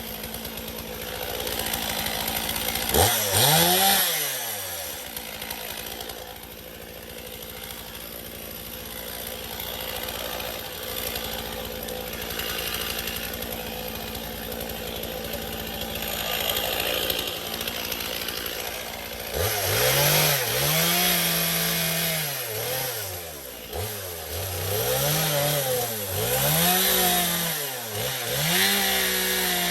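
Chainsaw idling, revved up once briefly about three seconds in, then from about two-thirds of the way through revved up and down four times in a row as it cuts into the branch.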